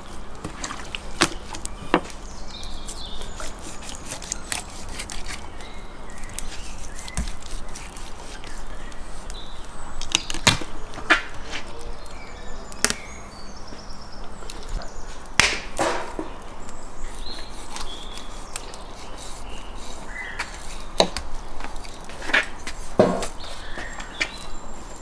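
A kitchen knife cutting and scraping a whole raw salmon on a wooden cutting board, with irregular sharp knocks and clicks of the blade and fish against the board.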